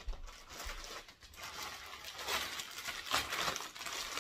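Clear plastic packaging crinkling and rustling in irregular crackles as a wrapped stroller part is lifted and handled.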